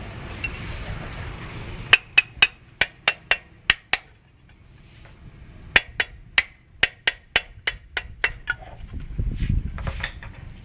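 Hammer blows on metal while a motorcycle engine is being dismantled: two runs of sharp, ringing strikes about three to four a second, with a short pause between them.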